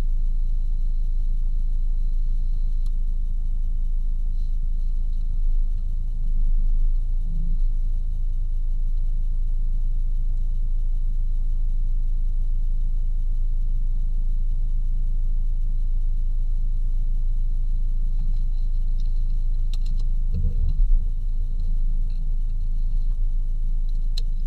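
Jeep Cherokee KJ engine idling steadily while the vehicle stands still, a low, even rumble heard from inside the cabin, with a brief thump about twenty seconds in.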